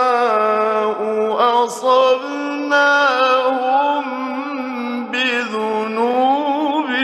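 A man reciting the Quran in the melodic mujawwad style, holding long, ornamented notes whose pitch wavers, with brief breaks and new phrases starting at about one, three and five seconds in. It is an old radio recording, thin and lacking bass.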